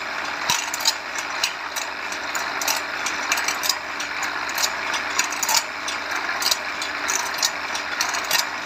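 Automatic bandsaw-blade sharpening machine running, its grinding wheel giving a steady grinding hiss on the saw teeth. Sharp clicks repeat about two or three times a second from the feed mechanism as it steps the blade along.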